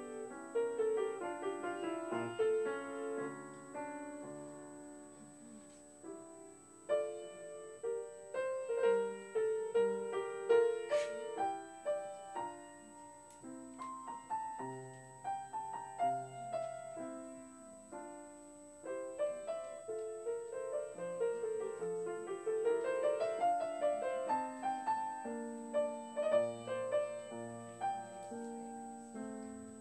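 Grand piano played solo: a slow, flowing piece of separate ringing notes in phrases, easing off briefly about six and eighteen seconds in.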